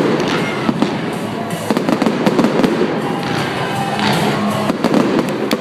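Fireworks show in full swing: a steady run of bangs and crackling bursts, with pop music playing over the PA.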